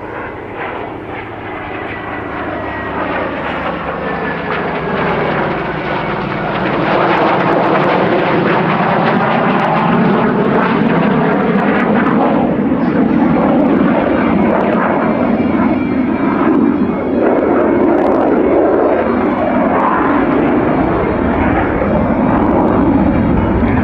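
F/A-18F Super Hornet jet engines growing steadily louder over about eight seconds as the jet closes in, then holding a loud, steady rumble and whine with slowly sweeping tones.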